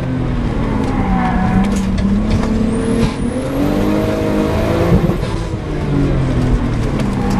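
Sprint car's engine heard from on board, pulling hard and easing off as it drives through the course. Its pitch drops about three seconds in, climbs again, then falls away after about five seconds.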